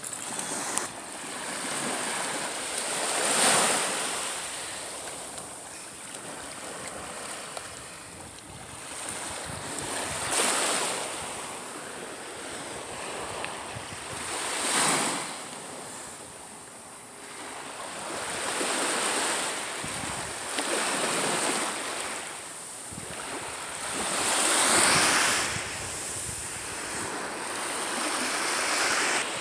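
Gulf of Mexico surf breaking on the beach: noise that swells up and dies back with each wave, every few seconds.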